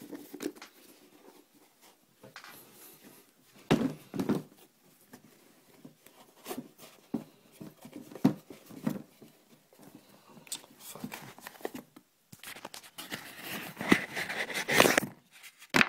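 Handling noise from hands turning and rubbing a sneaker close to the microphone: irregular rustling, scraping and small knocks. There are two loud bumps about four seconds in and a louder stretch of rustling near the end.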